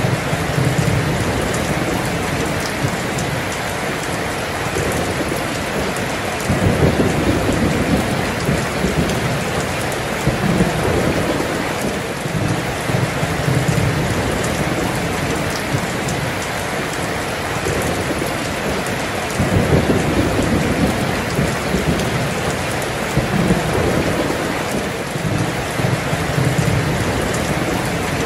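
Heavy rain pouring down steadily, with low rolling thunder rumbling underneath in several swells, loudest about seven seconds in and again about twenty seconds in.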